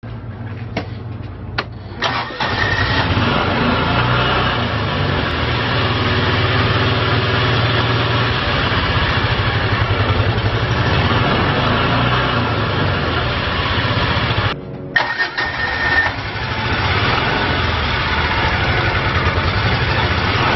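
2008 Kawasaki Mule KAF620J's V-twin gasoline engine cranked and started about two seconds in, then running steadily at idle. The sound breaks off briefly with a few clicks about three-quarters of the way through, then the engine runs on.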